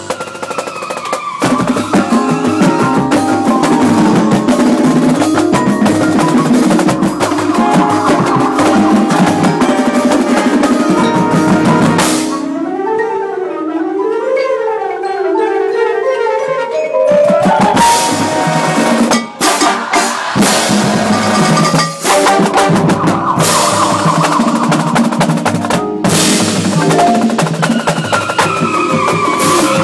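Marching band playing, heard from the front ensemble, with marimbas close up and drums and the rest of the band behind. About twelve seconds in the drums drop out and mallet percussion plays rising and falling runs alone for about five seconds, then the full band comes back in with sharp accented hits.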